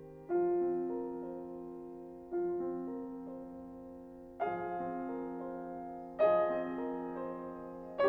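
Steinway Model D concert grand piano playing a slow, quiet piece: a new chord is struck about every two seconds, four times, each left to ring and fade before the next.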